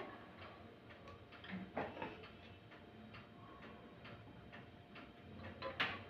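Faint rapid ticking over a faint steady hum from the preheated microwave convection oven. A metal pizza pan knocks against the oven rack about two seconds in and again sharply near the end as it is pushed in.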